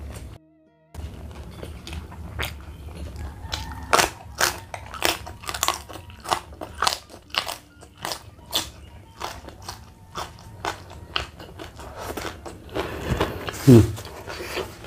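A person crunching and chewing raw vegetables with sambal, close to the microphone, with sharp crunches about twice a second. There is a short gap of silence about half a second in, and a short falling voice sound near the end.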